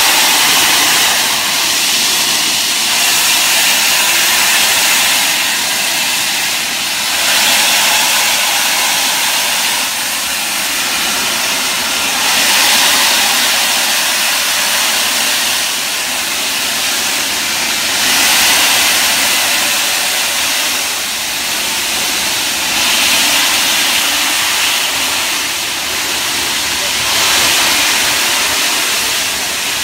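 Peppercorn A1 steam locomotive 60163 Tornado hissing steam loudly from its open cylinder drain cocks as it moves off slowly. The hiss swells and fades every few seconds.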